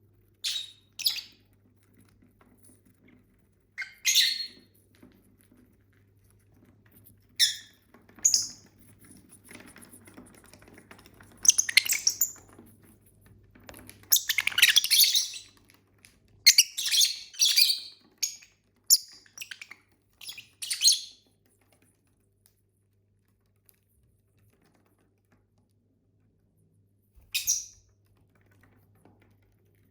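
Pet lovebirds giving short, high-pitched chirps and squeaky calls in scattered bursts, busiest in the middle, then mostly quiet with one last call near the end.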